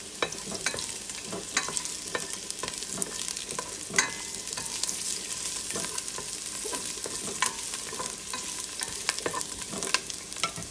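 Chopped garlic sizzling in oil in a stainless steel pot, with a cooking spoon scraping and clicking against the pot as it is stirred. There are frequent small knocks, the sharpest about four seconds in.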